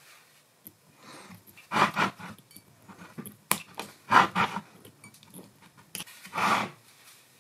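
Pliers working thin copper soft jaws against the steel jaws of a three-jaw lathe chuck: three short scraping rasps and a couple of sharp metallic clicks as the copper is squeezed to a snug fit.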